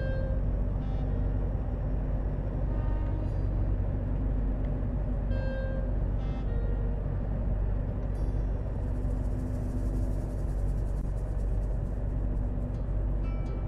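Steady low road and engine rumble of a car driving at speed on a paved highway, with faint pitched notes of music now and then.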